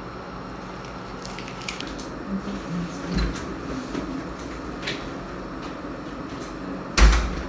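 Steady room hum with a few faint clicks and taps, then a single loud thump about seven seconds in.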